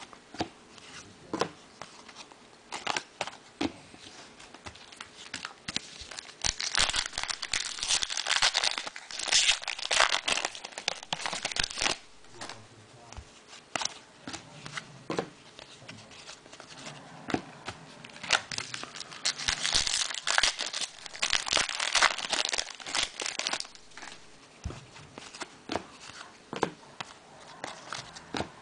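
Sealed trading-card packs being opened by hand: wrappers crinkling and tearing, in stretches with frequent short clicks as the cards are handled.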